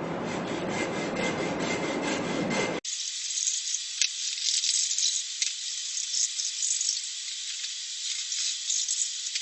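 Pine wood being worked by hand with an abrasive or rasp, a steady rubbing and scraping noise. A cut about three seconds in switches to thinner, hissier rubbing strokes.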